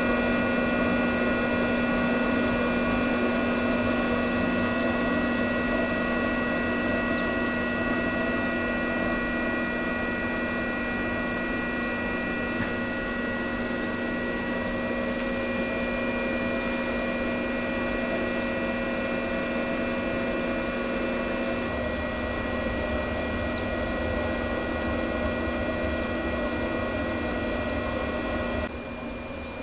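Steady electric hum and whine from a JR 115-series electric train standing at the platform, several fixed tones from its onboard equipment running. About three quarters of the way through, a low rumble and a fast ticking join in.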